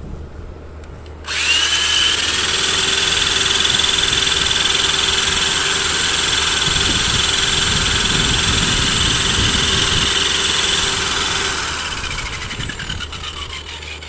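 Cordless drill spinning a wet-painted canvas on its chuck to fling the paint off (spin art). It starts suddenly about a second in, runs at a steady high whine for about ten seconds, then winds down with a falling pitch near the end.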